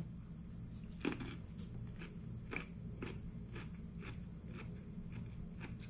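A person chewing a raw radish, with a crisp crunch about twice a second.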